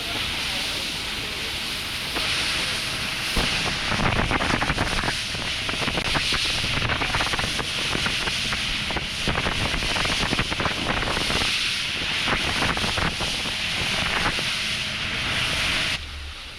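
Wind buffeting the microphone aboard a fishing boat under way, over a steady rush of engine and water. The noise drops abruptly near the end.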